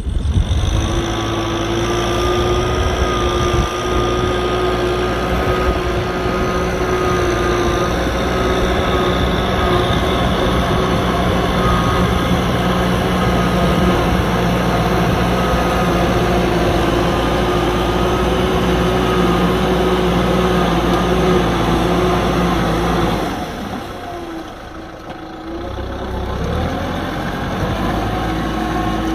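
Kubota M6040SU tractor's four-cylinder diesel engine running steadily under load while plowing mud. About three-quarters of the way through it drops away for a few seconds, then picks up again.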